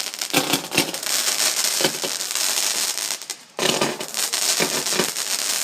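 Multi-shot firework cake going off: a dense run of crackling and sharp bangs. It breaks off for a moment about three and a half seconds in, then starts again.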